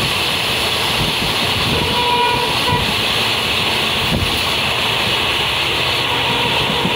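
Steady loud rush of wind and wheel-on-rail noise from an express train running at about 109 km/h close alongside a long freight train of open wagons, heard from aboard the express, with a few dull knocks.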